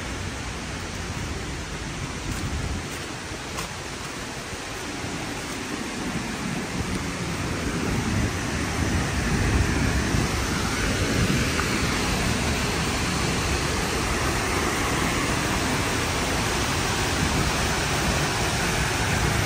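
Steady rushing roar of Bảo Đại waterfall. It grows louder about eight seconds in and then holds steady.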